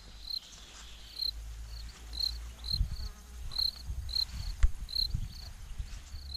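Short, high chirps repeating about twice a second at slightly uneven spacing, over a low rumble of wind and handling on the moving microphone, with a sharp click a little after four and a half seconds.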